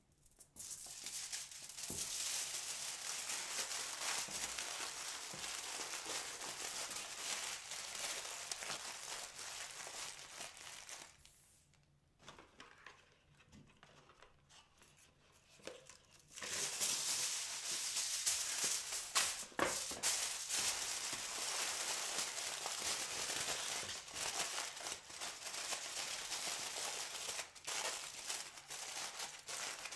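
Aluminium foil crinkling and crackling as hands fold it around a bundle of greens; about twelve seconds in it goes quiet for a few seconds, then the crinkling resumes as the foil packet is handled and opened.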